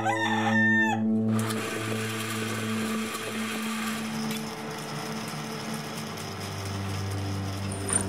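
A rooster crowing once, a call of about a second in the first moments, over steady held background music notes.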